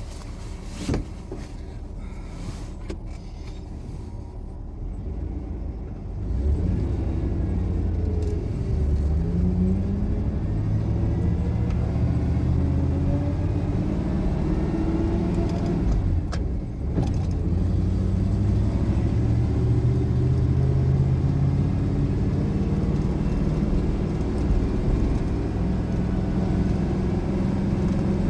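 Truck engine idling with a few short knocks, then pulling away about six seconds in and getting louder, its pitch rising and falling as it accelerates through the gears, with a brief dip at a gear change around the middle.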